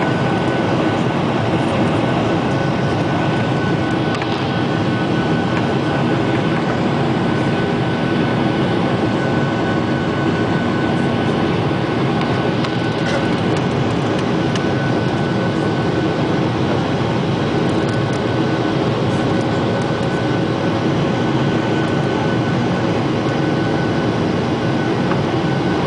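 Steady engine and airflow noise heard inside an airliner's passenger cabin: a dense, even rumble with a faint steady whine over it.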